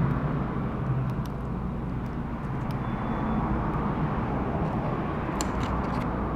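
Steady background noise with a low hum, and a few faint clicks and taps.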